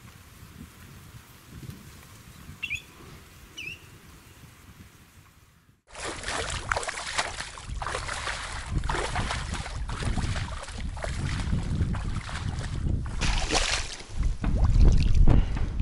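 Two short bird calls about a second apart over quiet water, then rubber boots sloshing and splashing step by step through shallow water and mud, continuous and loud, with heavier splashing near the end as decoys are lifted from the water.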